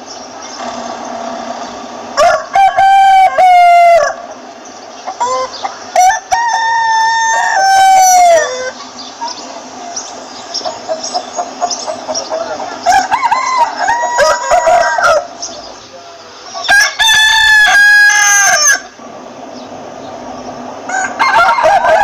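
Roosters crowing about five times, each a long cock-a-doodle-doo that falls in pitch at the end. Between the crows, hens cluck softly.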